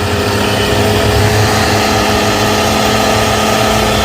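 Running car engine heard through a metal bar pressed against it as a mechanic's stethoscope: a steady rumble with several held tones, carrying the bearing noise of a failing alternator.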